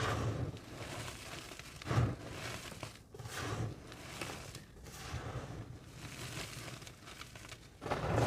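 Pressed gym chalk being crushed: dry, dusty crunching and crumbling in several swells, the sharpest about two seconds in.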